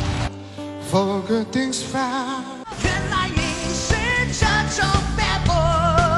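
A male singer performing a pop song into a microphone, holding notes with vibrato. It starts over light accompaniment, and a full band with drums comes in under him about two and a half seconds in.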